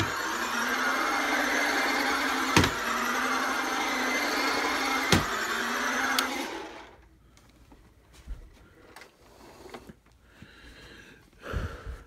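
Toy RC car's small electric drive motor and gears running with a steady whine as it drives on carpet, with two sharp knocks, at about two and a half and five seconds in. The motor stops just under seven seconds in, leaving only a few faint clicks and knocks.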